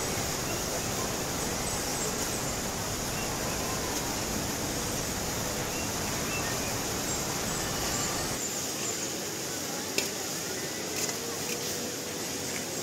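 Steady rush of a shallow rocky stream, with faint voices in the background. About ten seconds in there is a sharp tap, then a lighter one, as a metal spoon knocks on an aluminium serving tray while scraping off rice.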